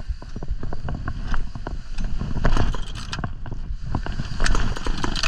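Low rumble of wind buffeting the microphone, with many irregular snaps and crackles over it.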